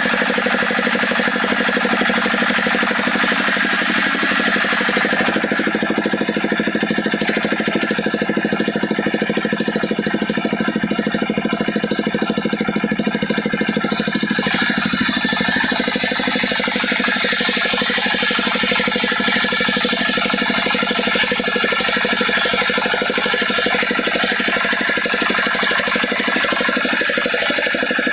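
Chainsaw engine running steadily, cutting wood into planks.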